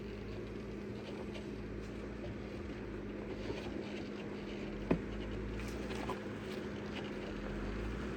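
2014 Jeep Wrangler Rubicon crawling slowly over a rocky trail: a steady engine hum with tyre and rock noise and scattered small knocks, one sharper knock about five seconds in.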